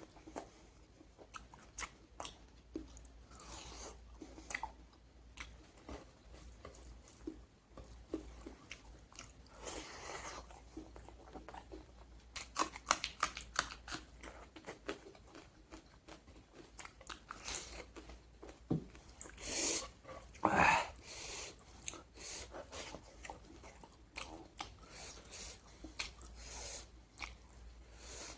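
A person chewing and biting into pork curry with raw onion and salad close to the microphone, with irregular crisp crunches throughout and a few louder bites.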